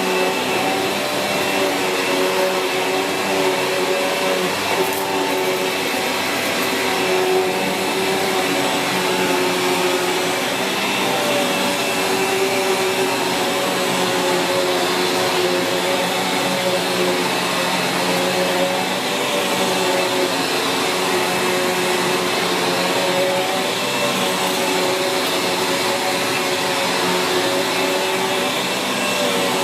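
Sanyo SCA-7AX upright bagged vacuum cleaner running steadily, its motor whine wavering slightly in pitch as it works.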